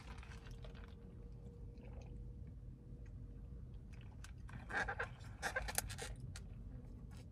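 Sipping a cold brew coffee through a plastic straw: a few short sips and mouth sounds about five seconds in, over a low steady hum.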